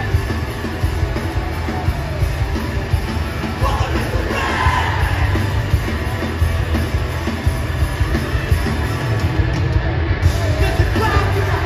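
A hardcore punk band playing live through a loud PA, with guitars, drums and heavy bass and vocals rising over the top about four seconds in and again near the end.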